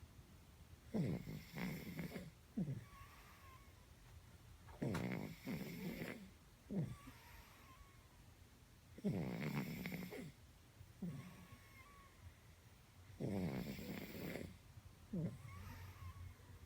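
Cat snoring in its sleep: four slow breaths, about four seconds apart, each a rattling snore ending in a short falling sound.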